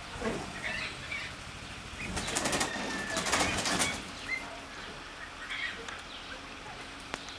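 A pheasant flapping its wings in a quick flurry of rapid beats for about two seconds, starting about two seconds in. A few short, faint bird calls sound around it.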